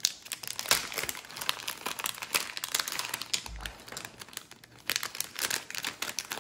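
Clear plastic packaging of a diamond-painting tool kit crinkling and rustling as it is handled and opened by hand, with irregular crackles throughout.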